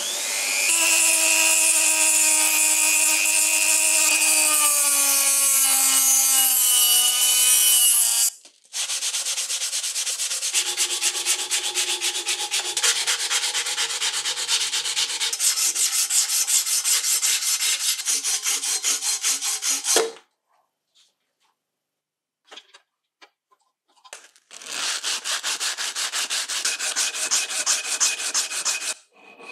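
A rotary tool with a small abrasive wheel grinding on an aluminium saw housing, its whine sagging slowly in pitch, then stopping at about 8 seconds. This is followed by a long stretch of hand sanding on the aluminium housing, with rapid even back-and-forth strokes. Near the end there is another short run of sanding strokes.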